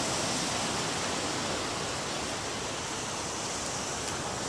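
Steady, even rushing noise of surf and wind.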